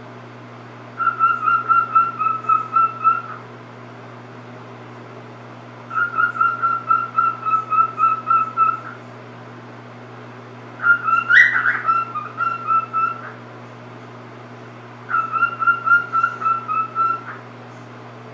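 Pet cockatiel whistling its song in four phrases of quick repeated notes, each two to three seconds long with short pauses between. The third phrase holds one louder, higher note.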